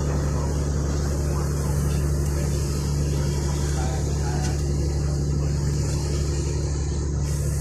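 A sportfishing boat's engine running steadily, a constant low hum with an even hiss over it.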